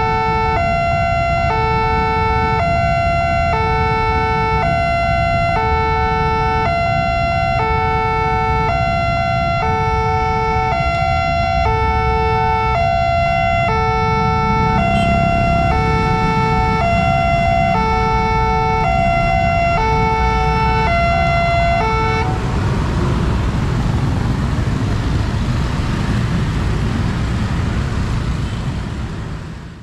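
Railway level-crossing warning siren of the Nippon Signal type, an electronic two-tone alarm switching between a lower and a higher note about every half-second, over the low rumble of a passing KRL electric commuter train and waiting motorbikes. The siren cuts off about two-thirds of the way through, leaving the rumble of road traffic moving off.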